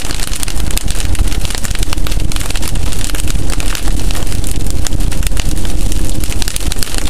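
Car driving on a wet road at about 55 km/h, heard from inside the cabin: a steady low road and engine rumble, with rain striking the windshield and roof in many sharp, irregular ticks.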